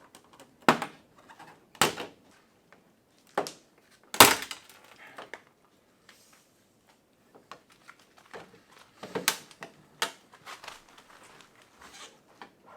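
Sharp clicks and knocks of hands and tools working on a van's plastic headlight assembly, about six in all, with quiet scuffing between them; the loudest comes a little past four seconds in.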